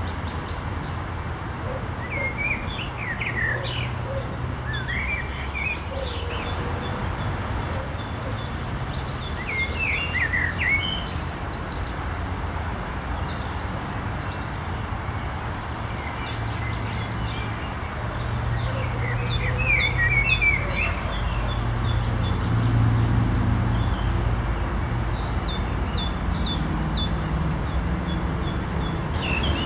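Several songbirds singing and chirping together, with short warbled phrases and runs of quick, repeated high notes. A steady low rumble runs underneath.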